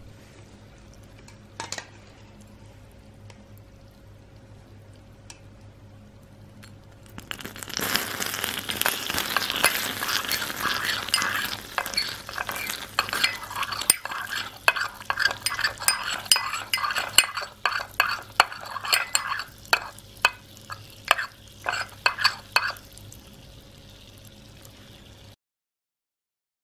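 Hot microwave-made sugar caramel in a ceramic ramekin sizzling and crackling loudly from about seven seconds in, after a faint steady hum, as it is stirred with a metal spoon. Near the end the sizzle dies down and separate spoon clinks against the ramekin are heard before it fades out.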